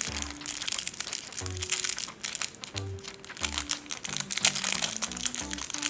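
Thin clear plastic wrapper crinkling in rapid little crackles as fingers peel it off a small plastic toy, over background music.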